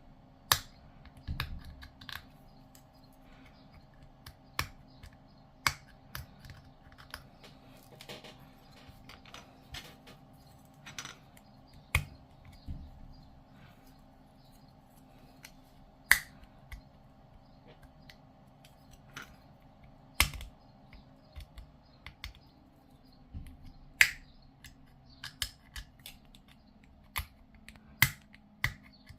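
Irregular sharp clicks and snaps of hard plastic model-kit parts being handled and pressed together, a few seconds apart, over a faint steady hum that fades out near the end.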